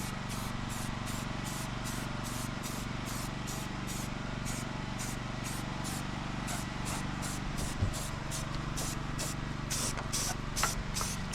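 Rust-Oleum primer spraying steadily from a spray can onto freshly welded steel: an even, continuous hiss.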